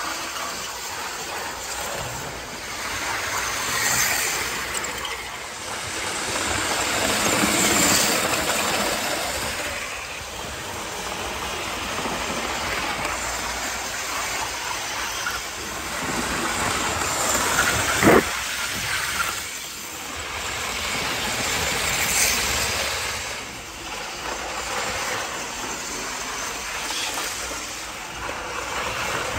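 Hornby APT model train, newly fitted with a ringfield replacement motor, running around the track. Wheels rumble on the rails and the motor whirs, getting louder and fading away every few seconds as the train passes, with one brief sharp noise about two-thirds of the way through.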